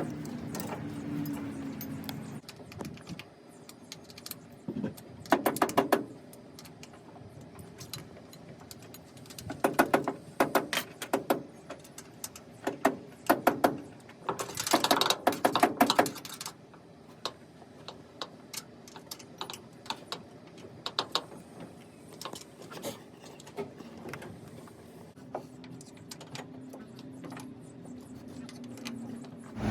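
Hand tools working on metal on a combine header while broken bars are being replaced: scattered clinks and bursts of rapid clicking, busiest and loudest from about ten to sixteen seconds in. A low steady hum sits under the start and the last few seconds.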